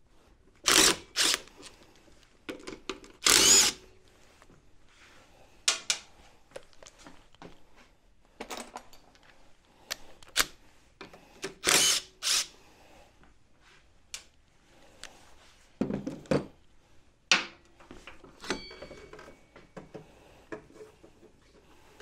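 Cordless power driver run in about a dozen short bursts, loosening and spinning out the bolts of a scooter's front disc brake caliper, with smaller knocks between the bursts.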